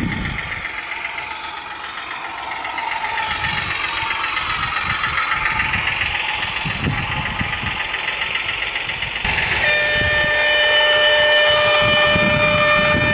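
A G-scale Goose model's onboard sound module plays a running diesel engine through its small speaker. About ten seconds in, a horn of several steady notes starts suddenly and keeps sounding.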